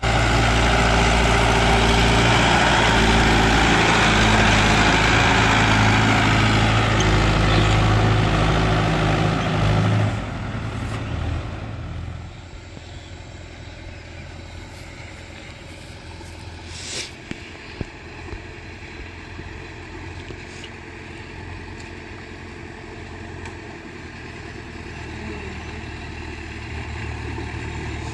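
Heavy diesel engine of earth-moving machinery running loud and close for about ten seconds. It then drops to a quieter, steady running, with a few sharp knocks near the middle.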